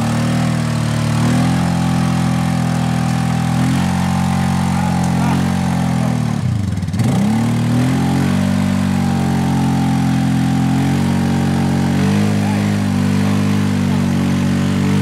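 ATV engine running hard at steady high revs. About six and a half seconds in the revs sag sharply, as if the engine is bogging under load, then climb back up.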